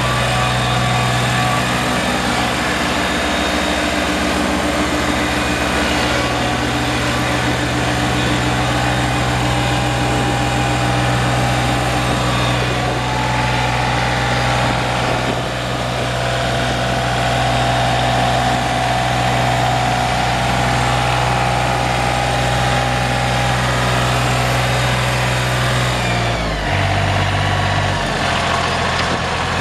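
John Deere 997 Z-Trak mower's Yanmar 1.33 L three-cylinder diesel engine running steadily, then dropping to a lower speed about three seconds before the end.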